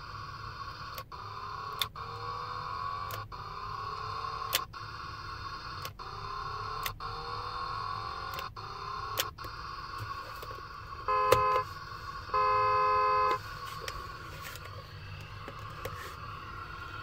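Battat Geared to Steer toy steering wheel: its plastic gear-shift lever clicks as it is moved, roughly every second or so, while the toy plays an electronic engine sound that rises in pitch. About eleven seconds in come two loud electronic beeps, a short one and then a longer one.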